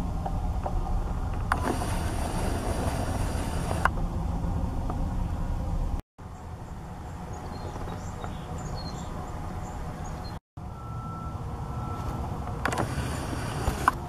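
Low wind rumble on the microphone in three stretches, split by two brief dropouts, with faint high bird chirps in the middle stretch.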